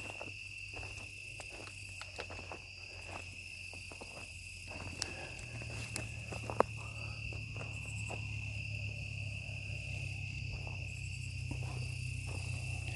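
Crickets chirring in a steady high-pitched chorus, with scattered faint clicks. From about halfway through, a low rumble of an approaching vehicle builds gradually underneath.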